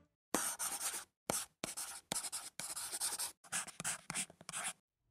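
Marker pen writing on a board: a quick run of short scratchy strokes with brief breaks between them, which stops suddenly near the end.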